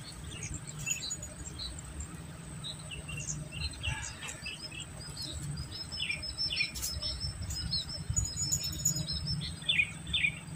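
Small birds chirping and calling over and over in short, high, quickly falling notes, with a quick run of high notes about eight seconds in, over a steady low background noise.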